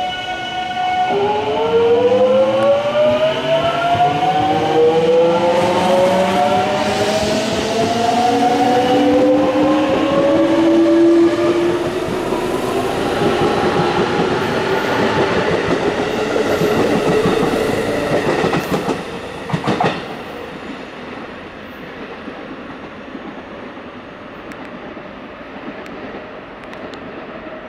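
Electric commuter train pulling away from the platform: its traction motors whine in several tones that climb steadily in pitch as it accelerates past, then fade. A short clatter of wheels over a rail joint comes near twenty seconds in.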